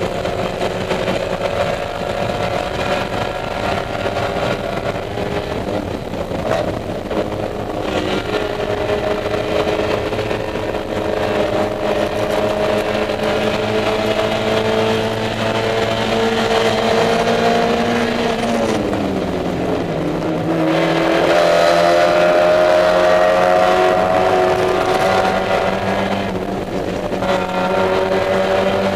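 Spec Miata's four-cylinder engine running hard under racing load, heard from inside the cockpit. The revs climb slowly, fall in pitch about two-thirds of the way through with a short break, then pick up again higher.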